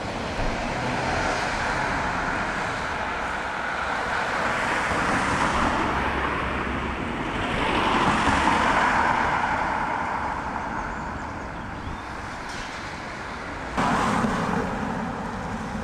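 Road traffic: cars passing on a busy road, one swelling up and fading at a time, the loudest about eight seconds in. The background changes suddenly near the end.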